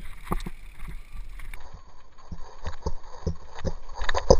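Mountain bike rattling over a rough dirt trail: irregular sharp knocks and clatter from the bike jolting over roots and bumps, the loudest just before the end.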